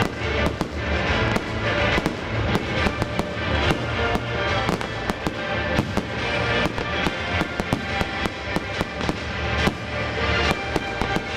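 Fireworks display: shells and comets bursting in a rapid, irregular string of sharp bangs and crackles, over show music with a steady low bass.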